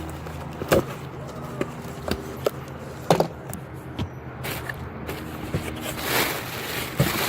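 A cardboard shipping box being opened and handled: a series of sharp knocks and clicks, then a longer rustle about six seconds in.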